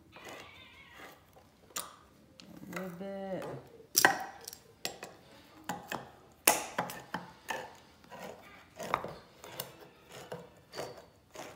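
Hand-crank can opener clicking and grinding around the rims of metal cans, with sharp knocks about four and six and a half seconds in, and a short squeaky tone about three seconds in.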